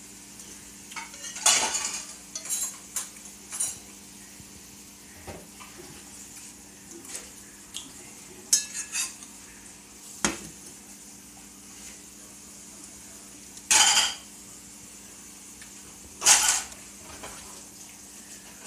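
Dishes and cutlery clattering at a kitchen sink as dishes are washed, in scattered clinks and knocks with a few louder clatters, over a faint steady hum.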